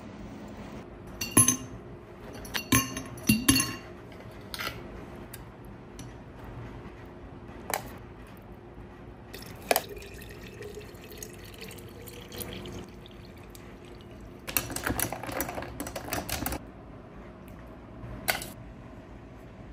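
Kitchen handling sounds: a metal hand lemon squeezer clacks sharply a few times against a steel bowl, then water is poured into a glass jar. A quick run of clinks follows, and near the end a metal ladle knocks once against a steel pot.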